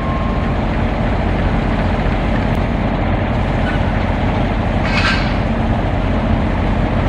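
Steady low rumble of heavy trucks and machinery on a construction site, with a brief higher hissing squeal about five seconds in.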